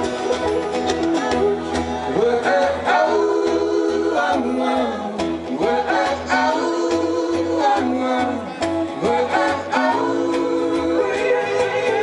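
Acoustic string band playing live, with plucked strings, stepping bass notes and a sliding melody line over them.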